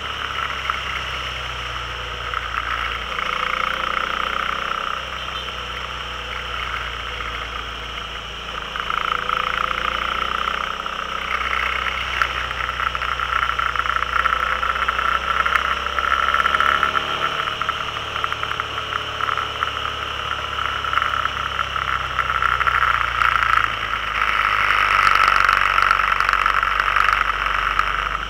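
Steady engine and road noise heard from a vehicle on the move, with a loud hiss of wind over the microphone. The engine pitch rises and falls gently through the bends.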